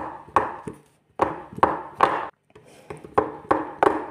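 Screwdriver tapping a rusted refrigerator door hinge pin upward to knock it loose: about ten sharp knocks at an uneven two to three a second.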